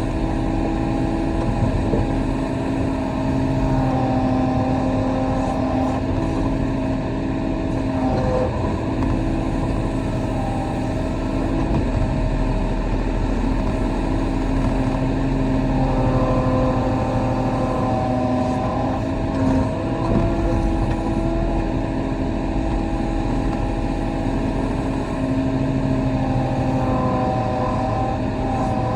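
Kobelco SK35 mini excavator's diesel engine running steadily as it works, with its tones shifting in pitch now and then as the load changes.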